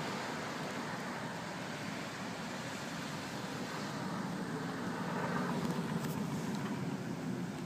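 Road traffic noise: a passing vehicle's engine and tyres, growing somewhat louder in the second half.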